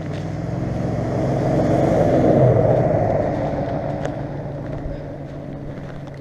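Pickup truck driving past on a paved road: engine hum and tyre noise grow louder to a peak about two and a half seconds in, then fade as it moves away.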